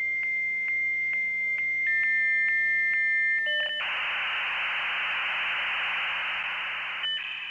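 Dial-up modem handshake: a steady high whistle ticked by regular clicks about twice a second, joined by a second slightly lower tone, then about three seconds of loud hissing static, ending in short tones.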